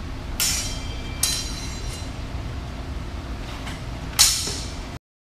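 Steel sabre blades clashing during a bout: several sharp metallic clanks that ring briefly, the loudest near the end.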